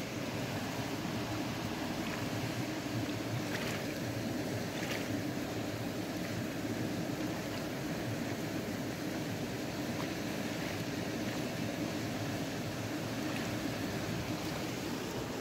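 Steady rushing of shallow stream water flowing over gravel, with a few faint clicks about four to five seconds in.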